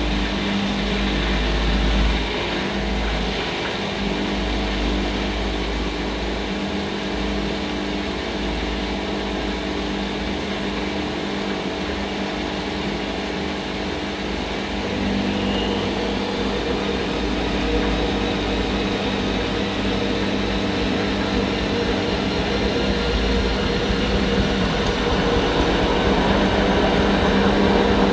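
Hoover Nextra HNL662 washing machine running a cycle: a steady motor hum over a low drum rumble, stepping up in loudness about halfway through and rising a little more near the end.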